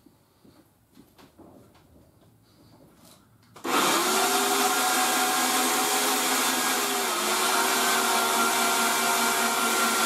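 A few faint ticks, then about three and a half seconds in a VEVOR portable electric winch's motor starts suddenly and runs with a steady whine, winding in its wire rope under the load of a car being pulled. The whine dips slightly in pitch about seven seconds in.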